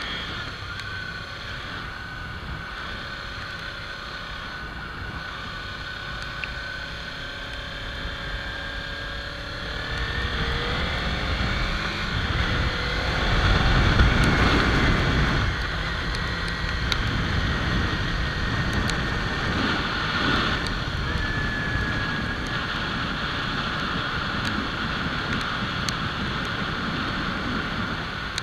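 Kawasaki Ninja 300 parallel-twin engine running under way, with wind rushing over the microphone. About ten seconds in the engine note rises and the wind rush swells, loudest a few seconds later, then settles to a steady cruise.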